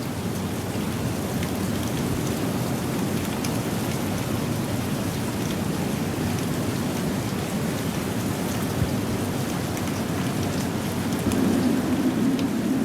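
Steady rain falling on pavement, a continuous hiss with scattered drop ticks. Near the end a lower rush swells louder, a vehicle approaching on the wet road.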